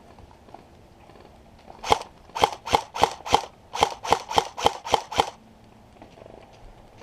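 Airsoft gun firing a string of single shots, each a sharp crack. There is one shot, then a run of four and a run of six at about three a second, stopping a little after five seconds in.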